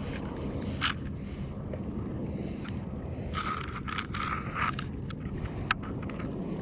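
Handling noise aboard a fishing kayak over a steady low rumble of wind and water on the microphone: scattered clicks and knocks, and a scraping sound lasting just over a second from about three and a half seconds in.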